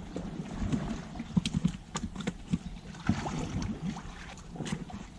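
Water lapping against shore rocks, with many short, irregular knocks and clicks.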